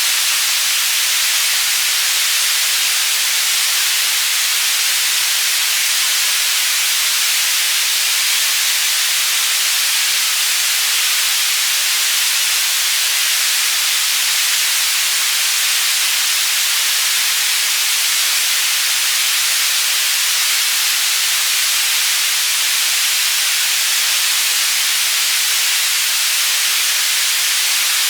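Steady synthetic white noise panning between the left and right channels, a bright hiss with little bass, used as a tinnitus-masking sound.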